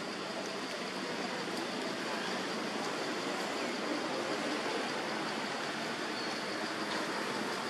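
Steady, even rushing hiss of outdoor background noise, with a faint steady high-pitched tone over it and a few faint short chirps.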